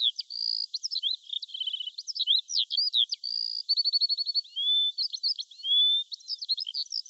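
A bird singing a quick, varied song of high chirps, short whistles and rapid trills.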